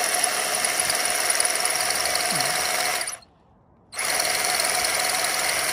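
Milwaukee M18 cordless rotary hammer running steadily as it spins a rusty 3/8-inch wedge bolt in its drilled hole, grinding the expansion cone loose so the bolt can be removed. It stops about three seconds in and starts again a second later.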